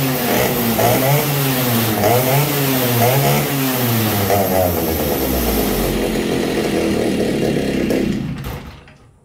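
An early-1970s two-stroke chainsaw running, its engine pitch rising and falling repeatedly as the throttle is worked without it picking up quickly, then dying away near the end. It has not warmed up enough to take quick throttle.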